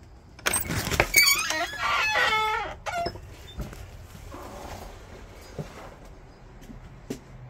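A metal slide-bolt latch clacks and a wooden door swings open on creaking hinges, a loud, wavering squeal lasting about two seconds. A few faint knocks follow.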